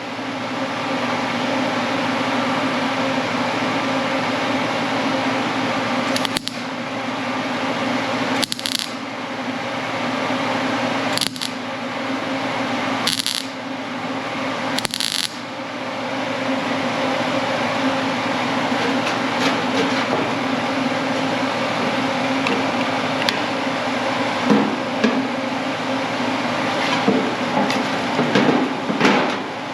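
MIG welder tacking a sheet-steel patch panel into a car fender: a steady buzz and hum with five short, sharp crackles between about six and fifteen seconds in.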